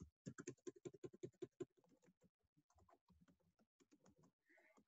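Faint computer keyboard typing: a quick run of keystrokes in the first second and a half, then a few scattered, quieter taps.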